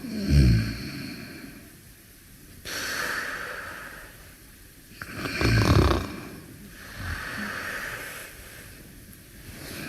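Snoring in sleep: two loud, rattling snores about five seconds apart, each followed by a softer, hissy breath out.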